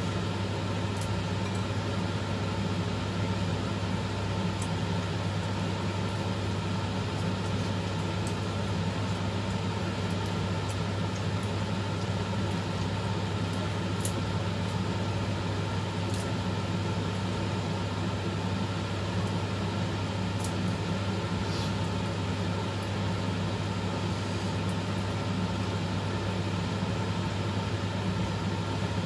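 A steady low mechanical hum, unchanging throughout, with a few faint clicks.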